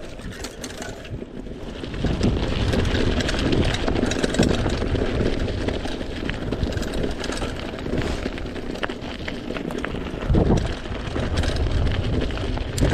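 Mountain bike rolling downhill over a loose gravel and rock track, with the tyres crunching on stones and the bike rattling, and wind buffeting the chest-mounted action camera's microphone. Quieter for the first two seconds, then louder as it rolls onto the rocky stretch.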